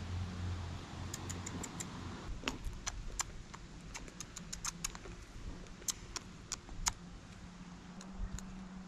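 An irregular series of about twenty short, sharp clicks and light clinks, bunched over a few seconds, with a faint low hum underneath.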